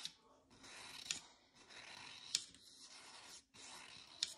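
Paintbrush strokes on canvas: faint scratchy swishes of the bristles, with four sharp ticks about a second apart.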